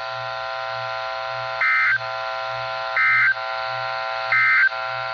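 Emergency Alert System end-of-message code: three short warbling digital data bursts, each about a third of a second long and about a second apart. They mark the end of the alert and play over a steady electronic drone of several held tones.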